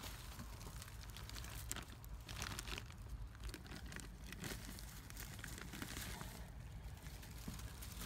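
Dry leaves, twigs and nest material rustling and crackling in irregular soft bursts as they are moved by hand to cover a rabbit nest.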